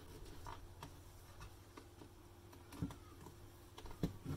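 Faint clicks and a few short, louder knocks of the hard plastic base of a Nescafé Dolce Gusto Lumio coffee machine being handled and turned over, the louder knocks in the second half.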